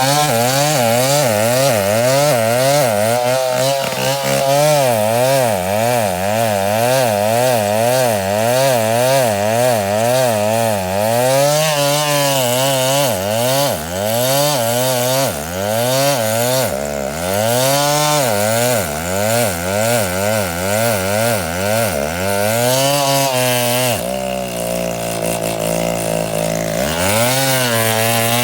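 Stihl 070 two-stroke chainsaw cutting wood, its engine pitch rising and falling about once a second as it bogs under load and frees up. About three seconds before the end it settles to a steady lower note, then revs up again.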